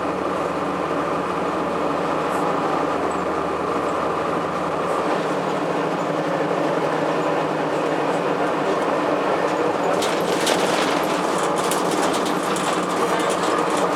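Interior drive noise of a 2002 Blue Bird CS transit bus under way: its Cummins ISC diesel engine running steadily with road noise, the low rumble dropping away about five seconds in. From about ten seconds in, a run of quick rattles and knocks joins it.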